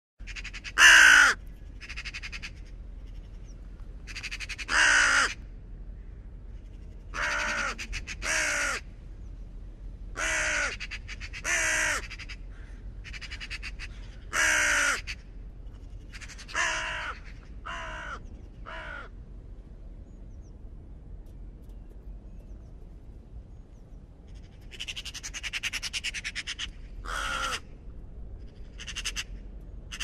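Common raven calling: a series of croaking calls, each about half a second long and falling slightly in pitch, spaced one to three seconds apart. After a pause comes a longer, rougher rasping call of about two seconds, then a few shorter calls near the end.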